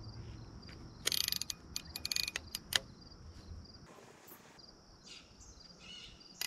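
A baitcasting reel's line clicker rattles off in two short runs of rapid clicks, a second and two seconds in, then a few single clicks: a catfish is picking up the bait and pulling line. Insects chirp steadily behind.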